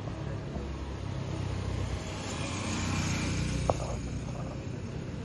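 A road vehicle driving past, its engine and tyre noise swelling to a peak about three seconds in and then fading, with one brief sharp click just after the peak.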